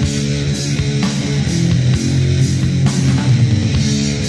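Heavy metal band from a demo recording: distorted electric guitars playing a riff over bass and drums.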